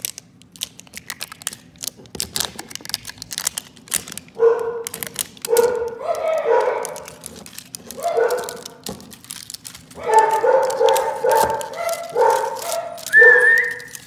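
Dogs barking and yipping in a run of short bursts from about four seconds in, the loudest sound here. Under them, and alone at first, comes the crinkle and tear of a toy ball's wrapper being peeled off.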